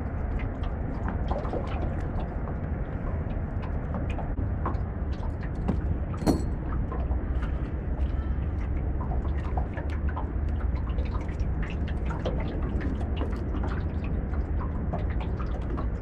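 Steady low rumble with many scattered small clicks and drips of water around a small fishing boat, and a brief rattle about six seconds in.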